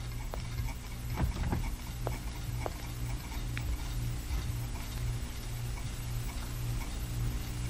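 A few irregular footsteps clicking on a hard floor, over a low hum that pulses steadily.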